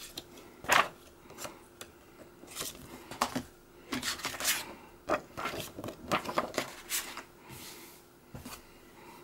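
Handling of a DVD's paper booklet and plastic case: scattered rustles, taps and clicks of paper and plastic.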